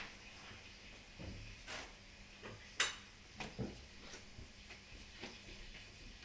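Faint steady low hum with scattered light clicks and knocks, the sharpest about three seconds in.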